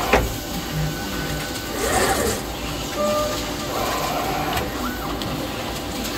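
Solder paste stencil printer running as its squeegee travels across the stencil: steady machine noise with a sharp click at the start, a swell of mechanical noise about two seconds in, and a few brief whines later on.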